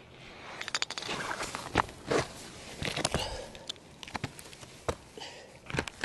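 Irregular crunches, scuffs and sharp clicks close to the microphone, like feet or hands moving on gritty sandstone, loudest about two seconds in.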